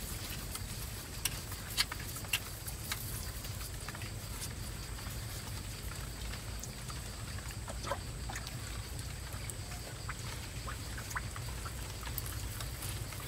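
Scattered light patter and clicks of elongated tortoises stepping through a shallow muddy rivulet, their feet splashing and scraping on wet ground, over a steady low rumble. A few sharper clicks come in the first few seconds.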